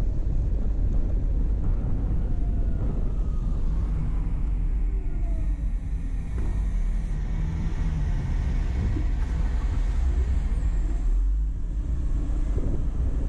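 Steady low rumble of a car driving, road and engine noise with no sudden events.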